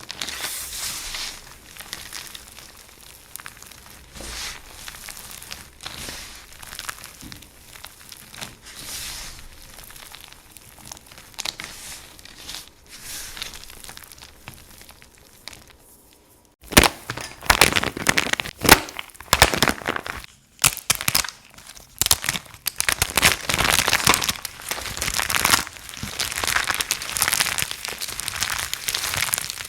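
Dry soap crunching and crumbling close to the microphone: soft, dense crunches at first, then a little past halfway a sudden switch to louder, sharper cracking crunches.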